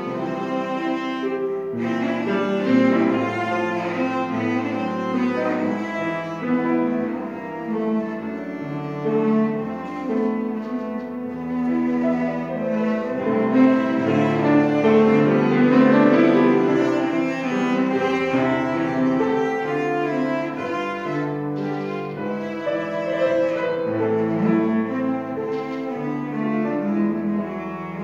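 A cello bowed through a continuous piece of classical music, accompanied by a grand piano.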